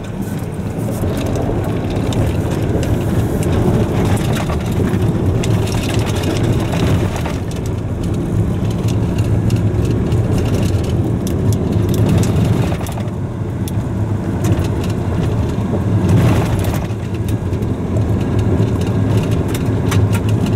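Car driving on a dusty dirt road, heard from inside the cabin: a steady road and engine rumble, with tyres crunching the loose surface and small stones ticking against the body again and again.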